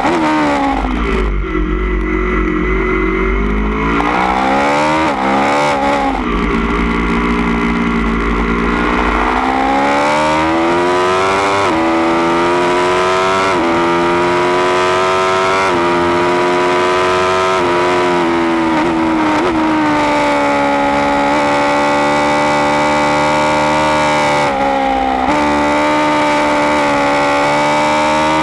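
Aprilia Tuono V4 1100 Factory's V4 engine through a baffled Austin Racing GP1R exhaust, heard onboard at track speed. The revs fall and rise through the bends, then climb in a run of five quick upshifts about two seconds apart before holding high revs.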